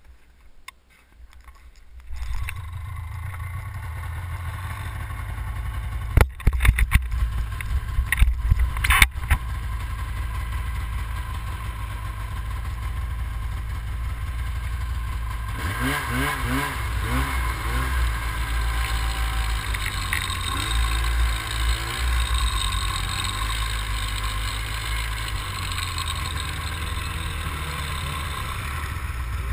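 Snowmobile engine starting about two seconds in and running at idle, with loud knocks and clatter a few seconds later. About halfway through it revs with rising pitch as the sled pulls away, then runs steadily under way.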